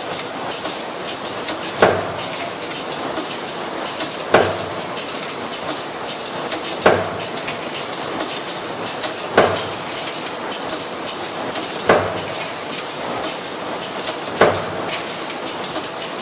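Servo-driven metal stamping press running at its second speed setting, striking a sharp metallic hit about every two and a half seconds, six strokes in all. Between the hits there is a steady clatter and hiss of machinery.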